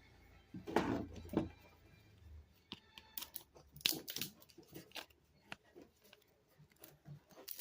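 Scattered clicks, knocks and rustling of tools and small metal motor parts being handled and set down, with a faint low hum in the first couple of seconds.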